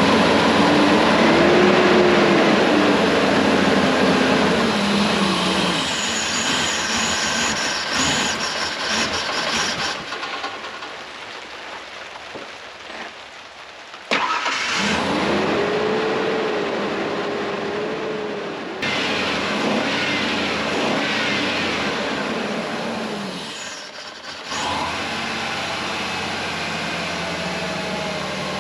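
1996 Ford Ranger's 3.0 L V6 engine starting and running, revved up and down several times, then settling to a steadier idle near the end. It has a misfire at idle, with spark and compression both found good.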